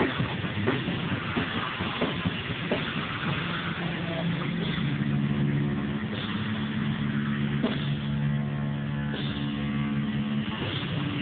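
Live heavy rock band: distorted electric guitar and drums. Regular drum hits come at first, then the guitar holds low, droning notes from about three seconds in, with a few more hits. The sound is muffled, as from a phone recording with no treble.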